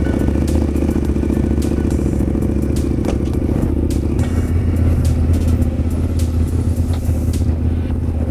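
Large twin-cylinder adventure motorcycle engine running steadily at low revs, with a few light clicks and rattles over it.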